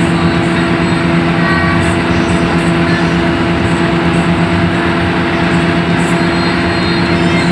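Hino AK8 coach bus cruising at steady speed, heard from the driver's cab: a steady diesel engine drone at an even pitch, mixed with tyre and road noise.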